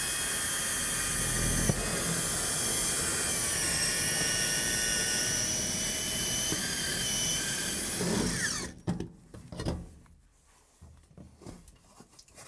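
Cordless drill driving a sheet metal duct cutter through a galvanized steel duct, cutting a round hole: a steady, loud high screech of metal being cut. It stops about nine seconds in as the cut goes through, followed by faint handling sounds.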